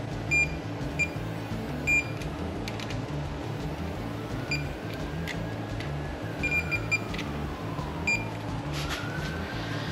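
Digital torque wrench beeping as it reaches its set torque on the connecting rod cap nuts: short high beeps, singly at first and then several in quick succession about two-thirds through. Background music with a steady low beat runs underneath.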